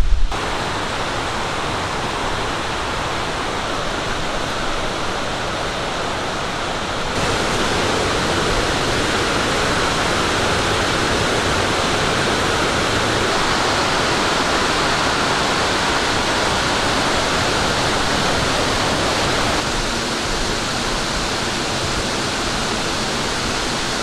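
Steady rushing of a waterfall, an even wash of falling water that steps up in level about seven seconds in and drops back a few seconds before the end.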